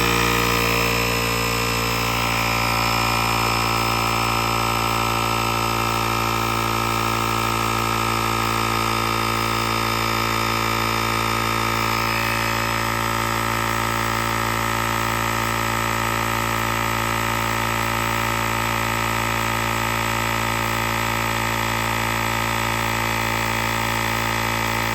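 Craftsman 150 psi mini portable air compressor running steadily, its small electric pump inflating a tire through the valve stem toward a preset pressure. It makes a constant buzzing hum.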